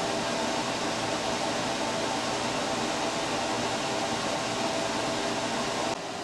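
Steady fan-like whir with a few faint steady tones running through it. It drops a little in level near the end.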